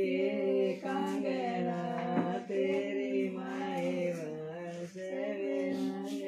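A voice singing a slow melody in long held notes.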